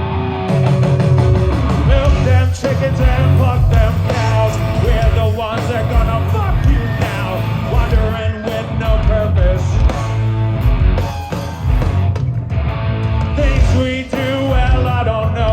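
Live rock band playing loud, with electric guitar, bass and drums; the drums and cymbals come in right at the start over the guitar.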